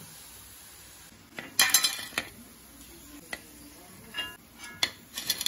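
Steel perforated skimmer scraping and clinking against an iron kadai as sevu sticks are lifted out of the frying oil: a cluster of clatters about one and a half seconds in, then several single sharp clinks. A steady sizzle of frying runs underneath.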